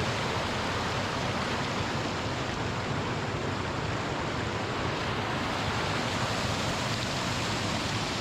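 Steady rush of water from a small waterfall on a river running high after rain.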